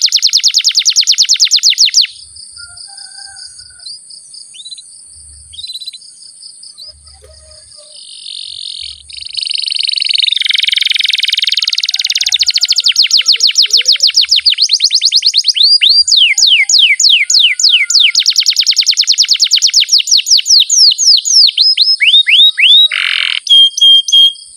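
Domestic canary singing long rolls of rapid, high, falling notes. A quieter stretch with scattered notes comes about two seconds in, a harsher buzzy passage follows near the middle, and then the rolls resume.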